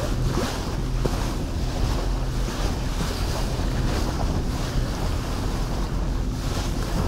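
Orkney Fastliner boat underway: its engine drones steadily under the rush and splash of water along the hull, with wind buffeting the microphone.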